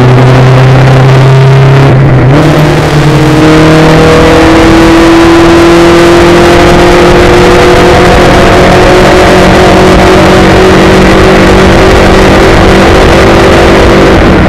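Spec Racer Ford's four-cylinder engine at full throttle, heard loud from the cockpit with wind and road noise. The pitch changes with a gear change about two seconds in, then climbs steadily as the car accelerates through the gear.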